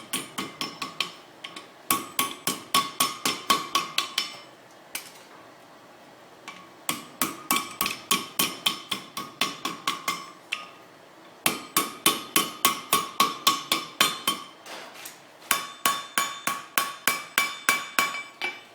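Blacksmith's hammer beating hot steel on an anvil, rapid blows about four or five a second, each with a bright metallic ring. The hammering comes in five runs of a few seconds, with short pauses between them.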